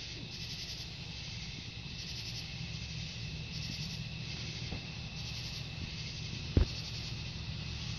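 Night insects calling: a steady high trill with a pulsed high call repeating about every second and a half, over a low steady hum. One short thump late on is the loudest sound.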